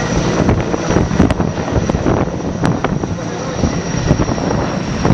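Erickson S-64 Air-Crane twin-turbine helicopter flying low overhead, its rotors and engines running loud and steady, with a thin high steady whine on top.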